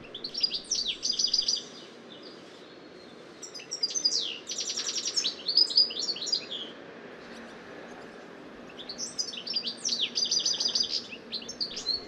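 European goldfinch singing in three bouts of hasty, restless twittering and trills, the high notes jumping widely in pitch, with short pauses between the bouts.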